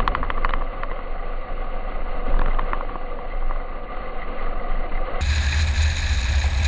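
Steady engine and propeller drone of a single-engine light airplane, with a quick run of short clicks at the start and a few more about two and a half seconds in. About five seconds in, the sound switches abruptly to a deeper, fuller drone.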